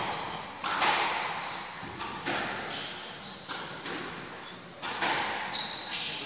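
Squash rally: the rubber ball cracking off rackets and the front wall about once a second, each hit ringing in the enclosed court, with short squeaks of court shoes on the wooden floor between the hits.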